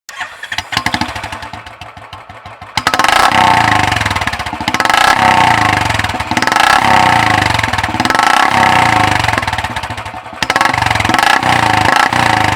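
Royal Enfield single-cylinder motorcycle engine breathing through an aftermarket silencer: a low, uneven thump at first, then about three seconds in it gets loud and is revved repeatedly, the sound swelling and easing every couple of seconds.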